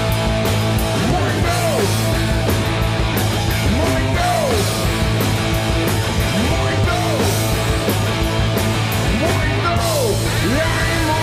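Live rock band playing loud: drums, bass and electric guitar, over which a lead line repeatedly glides up and down in pitch.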